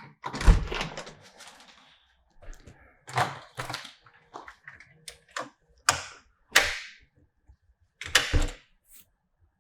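Door shutting with a thump, then a series of sharp clicks and clunks from a key and deadbolt being worked to lock it.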